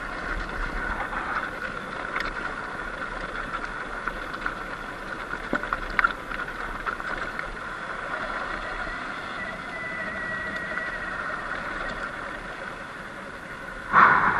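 Surron Light Bee X electric dirt bike riding over a rough desert track: a steady rush of tyre and riding noise with a faint motor whine that drifts in pitch, and scattered sharp clicks and knocks. A loud thump near the end.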